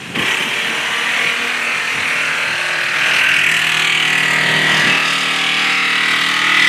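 A power tool starts suddenly and runs steadily, with a high whine over a lower hum.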